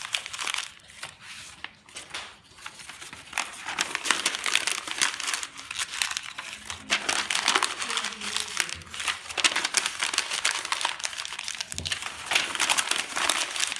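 Sheets of printer paper and newspaper being crumpled into balls by hand: a dense, crackly crinkling with a short lull about two seconds in.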